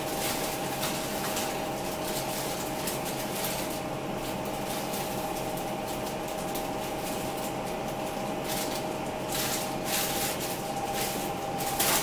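Plastic bag of sweet peas crinkling as the peas are shaken out into a saucepan, in scattered rustles with a louder patch near the end. A steady two-tone electrical hum runs underneath.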